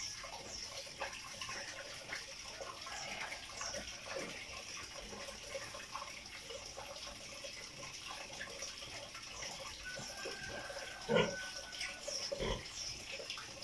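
Water trickling and dripping with many small ticks, over a steady high hiss. About eleven seconds in there is one brief, louder knock.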